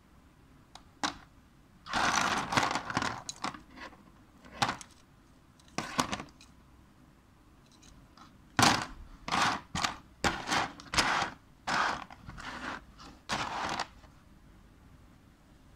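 Dry agarwood (oud) chips clicking, scraping and rustling against one another and the table as a gloved hand stirs and lifts them, in irregular bursts with pauses.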